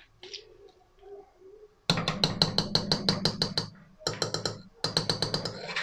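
A metal spoon rapped quickly and repeatedly against a metal cooking pot, about six knocks a second, in three runs starting about two seconds in, knocking spoonfuls of soft cheese off into the soup.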